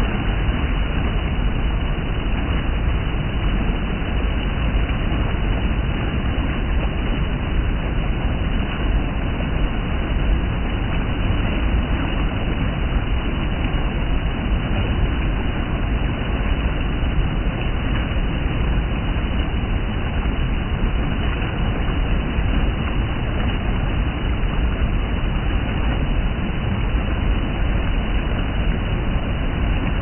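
Shallow water rushing over rock and splashing around bare feet: a steady, loud rush with a deep rumble underneath.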